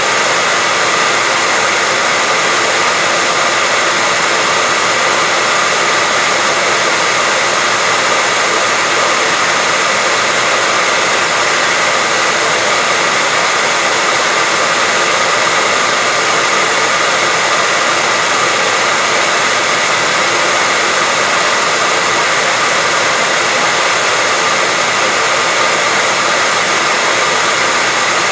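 Electric hair dryer running continuously at a steady speed, a constant airy whoosh with a faint whine from its motor and fan.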